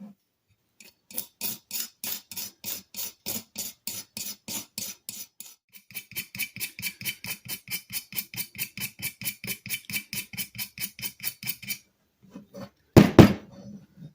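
Straight razor scraping paint off the cast-iron body of a Sargent hand plane in quick, even strokes, about three to four a second, with a short break about halfway. Near the end comes one heavy clunk.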